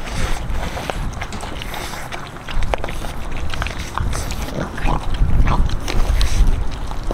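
French bulldog puppies chewing and tearing at a whole raw chicken: wet chewing with many short, sharp crunching clicks scattered through.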